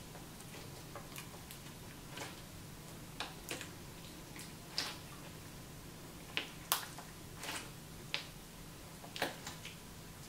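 Store-bought slime being squished and stretched by hand, giving off irregular sharp clicks and pops, about a dozen of them.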